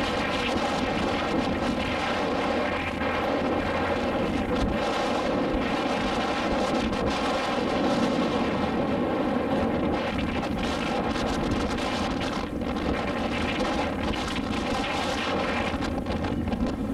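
Motorboat engine running steadily at an even speed, a constant drone with a rushing hiss over it.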